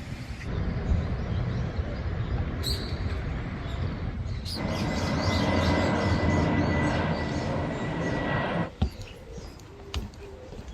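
Loud, steady rumbling noise of vehicles passing, growing louder about halfway through and cutting off abruptly near the end.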